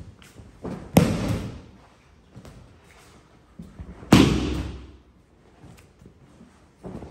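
An aikido partner being thrown and breakfalling onto tatami mats: two loud thuds of a body hitting the mat, about a second in and about four seconds in, with a few lighter knocks between.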